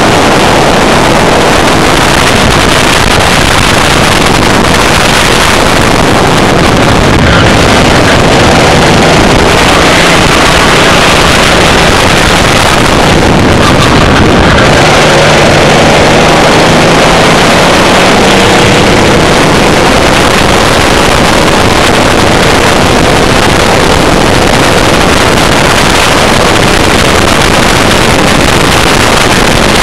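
Race kart at speed heard from an onboard camera: the engine note is buried under loud, steady wind noise on the microphone, with the engine pitch climbing through the middle stretch.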